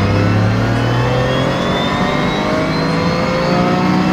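Turbocharged 1.6-litre three-cylinder engine of a modified Toyota GR Yaris pulling hard under full acceleration, heard from inside the cabin, its note climbing steadily in pitch as the revs rise.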